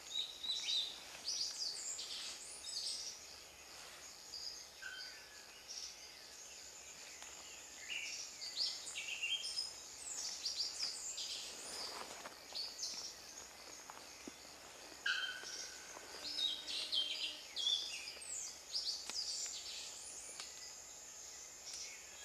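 Male Brachycephalus pitanga toadlet giving short, high chirping call notes within a forest chorus of other chirps and whistles, over a steady high-pitched drone.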